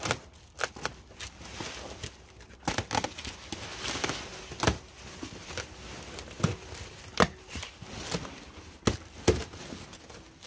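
Cardboard and packing material being rummaged through and pulled out of a box: irregular rustling and crinkling, broken by several sharp knocks, the loudest about five, seven and nine seconds in.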